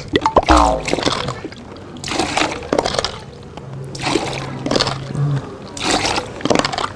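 Puddle water being scooped with a plastic dipper and poured into a plastic bucket, with about half a dozen separate splashes.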